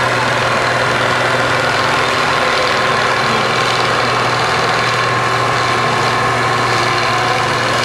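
Steyr 1090 tractor's diesel engine running hard and steady at full load, pulling a weight-transfer sled.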